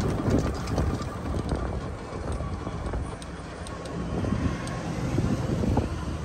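Golf cart driving, a steady running rumble with a faint whine, light clicks and rattles, and wind on the microphone.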